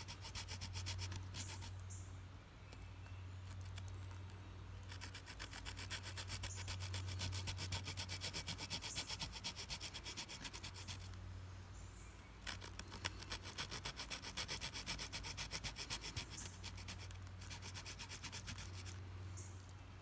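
Victorinox Fieldmaster Swiss Army knife's small wood saw rasping across a stick of fatwood in rapid short back-and-forth strokes, grinding it into sawdust, in several runs with short pauses between.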